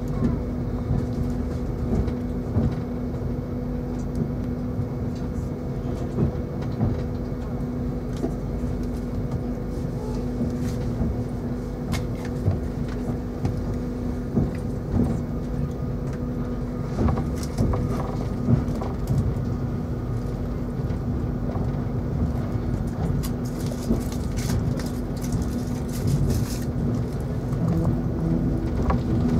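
Inside a Class 390 Pendolino electric train pulling away: a steady low hum over the rumble of wheels on track, with scattered clicks and knocks from rail joints and pointwork, more frequent in the second half.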